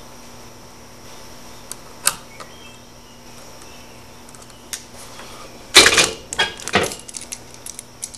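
Clicks and metallic rattles of needle-nose pliers, wire and a light switch being handled, with a few single clicks, then a loud cluster of clatter about six seconds in and small ticks after it.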